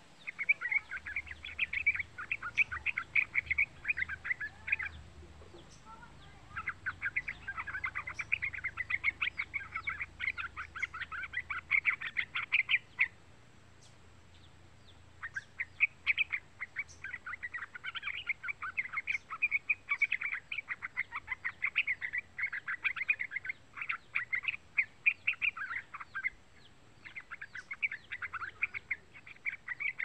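Young yellow-vented bulbul (trucukan) singing in four long runs of rapid chattering notes, each several to about ten seconds long, with pauses of one to two seconds between them.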